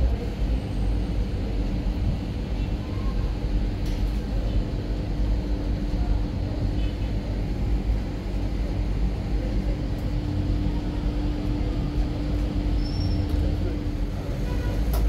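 Steady low rumble of a running motor vehicle, with a constant engine hum underneath.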